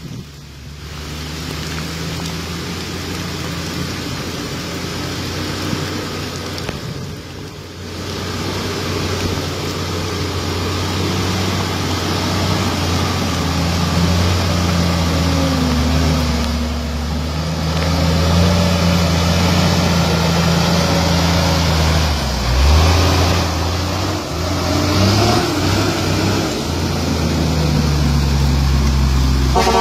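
Truck engine working hard as it drives through deep mud, its pitch rising and falling a little as it labours. It grows steadily louder as the truck comes close and passes.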